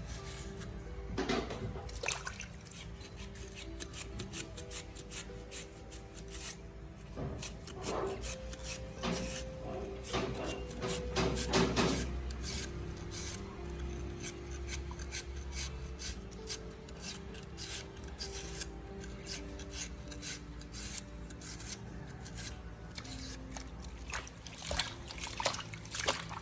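Knife slicing sour starfruit thinly, many quick cuts.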